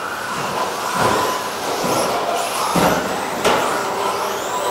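13.5-turn brushless electric RC stadium trucks racing on carpet, their motors whining up and down with the throttle. Three sharp knocks come about one, three and three and a half seconds in.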